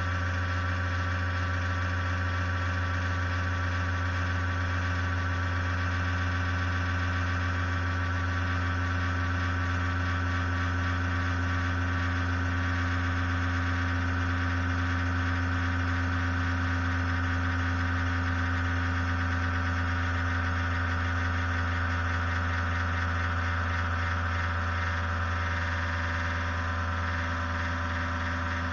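Ig-Max 1607 500W PC power supply running: a steady, unbroken low hum with several steady higher whines over it.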